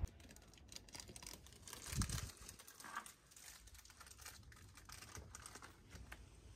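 Faint scattered clicks and light rustling in a small room, with a single low thump about two seconds in.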